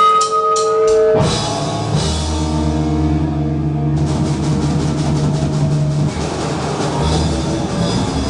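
Live rock band playing loud: a few quick cymbal taps, then the full band with drum kit and bass comes in about a second in, and steady cymbal crashes join partway through.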